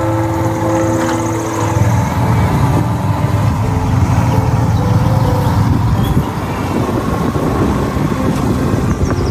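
Motor vehicle running along a road, with steady engine and road noise.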